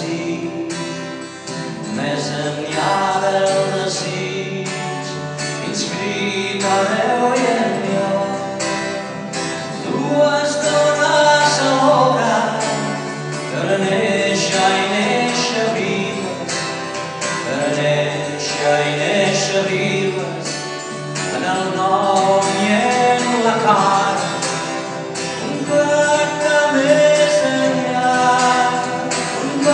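A man singing a slow song in Catalan to his own acoustic guitar accompaniment.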